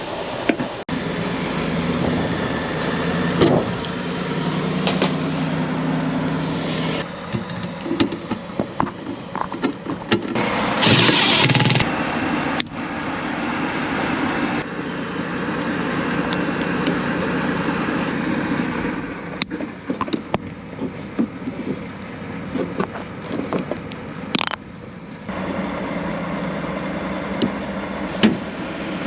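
Machinery running steadily with a low hum, with a loud hiss lasting a second or two about eleven seconds in and scattered clicks and knocks.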